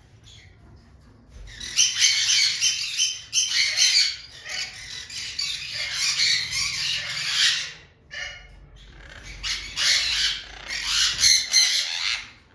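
Birds calling harshly in two long bouts of rapid, overlapping calls, with a short break about eight seconds in.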